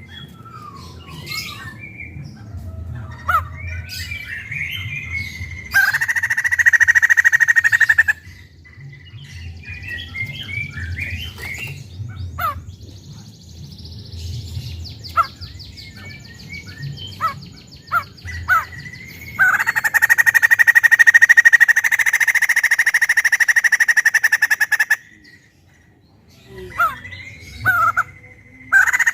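White-crested laughingthrush calling loudly: scattered chirps and short whistled glides, a fast, higher rattle about fifteen seconds in, and two long, loud, harsh rattling bursts, a shorter one about six seconds in and a longer one from about twenty seconds in.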